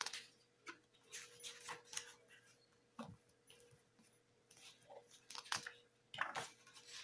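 Pages of a thick, card-like CD booklet being turned and handled: soft, scattered paper rustles and light taps.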